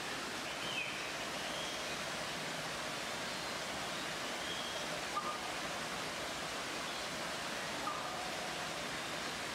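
Steady splash and rush of a small waterfall pouring over rocks, with a few faint, short high chirps over it.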